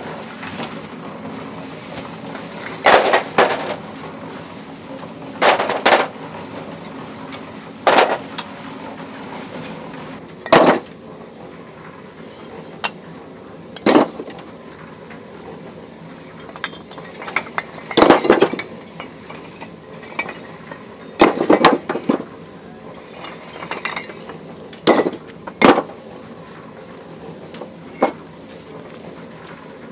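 Sharp clinking knocks of hard objects striking, about a dozen of them a second or more apart, some in quick pairs, over a steady low hiss.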